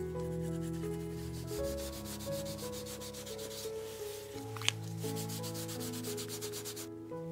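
Sandpaper rubbed in quick back-and-forth strokes over the rough flesh side of a leather panel, starting about a second and a half in and stopping just before the end, with one sharp tick about two-thirds of the way through. Soft piano music plays underneath.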